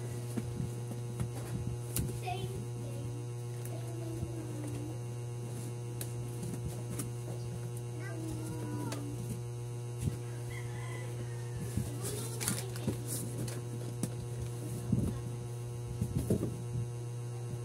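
Boxed and bagged snack goods being taken out of a cardboard box and set down, with light knocks and plastic rustling coming in scattered clusters, louder from about ten seconds in. A steady low electrical hum runs underneath.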